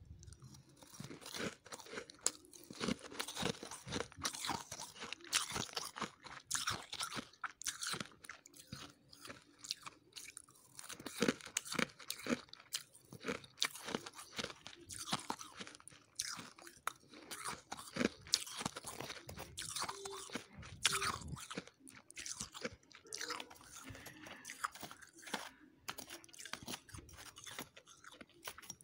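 Close-miked chewing of dry, crisp freezer frost: many irregular crunches and crackles in quick succession.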